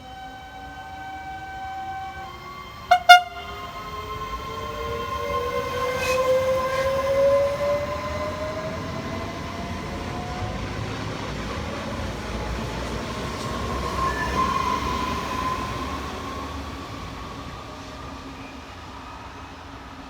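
Passing electric train: two short horn blasts about three seconds in, then the train's rumble and whining traction motors, which swell and fade over about fifteen seconds.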